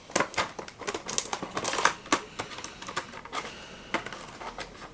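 Plastic blister packaging of a diecast toy car being pried open by hand: irregular clicks and crackles, thickest in the first two seconds and then sparser.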